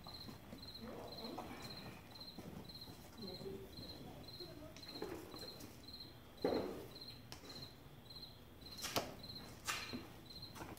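A cricket chirping steadily, about two short chirps a second, over soft rustling of saddle tack being handled. A single thump about six and a half seconds in, and two sharp clicks near the end.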